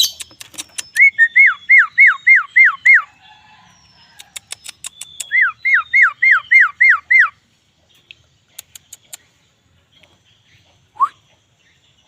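Javan myna (jalak kebo) whistling two runs of seven quick, identical slurred notes, with sharp clicks around the runs and a single short rising note near the end.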